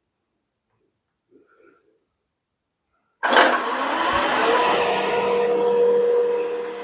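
A wood lathe switched on about three seconds in, its motor coming up to speed and running with a rushing noise and a steady whine. Before that there is a short, soft breathy hiss.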